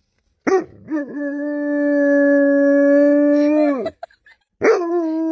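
A dog howling: one long, steady howl of about three seconds, then after a brief pause a second, slightly higher howl begins near the end.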